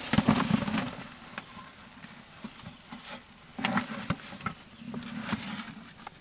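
Cooked sweet potatoes tumbling out of a metal pot into a woven bamboo basket: a burst of dull thuds and rustling in the first second, then more bursts as the pot is tipped further.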